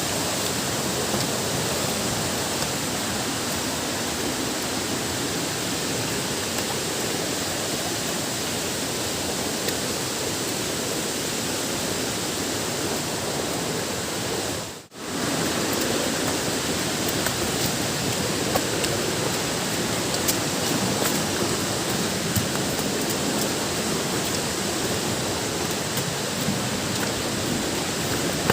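Steady rushing noise of a waterfall, even from low to high with no pitch to it; it drops out for a moment about halfway through.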